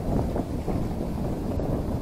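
Wind blowing on the microphone: an uneven low noise with no distinct events.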